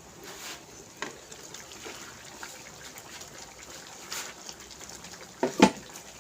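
Kitchen utensil knocks and clinks against cookware over a faint wet stirring noise: a few scattered clicks, then two louder knocks close together near the end.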